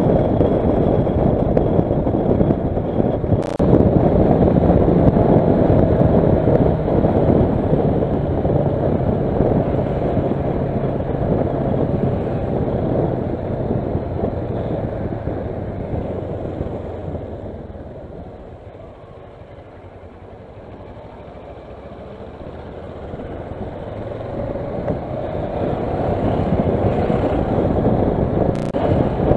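Kawasaki Versys motorcycle on the move, its engine running under heavy wind rush on the microphone. The noise dies down about two-thirds of the way through and builds again near the end.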